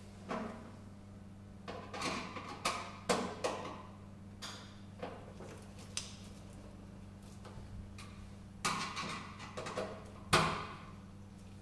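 Irregular clicks, knocks and rattles of plastic filter parts being handled as a water filter head is fitted onto its mounting screws and screwed down in the filter compartment, the loudest knock about ten seconds in. A steady low hum runs underneath.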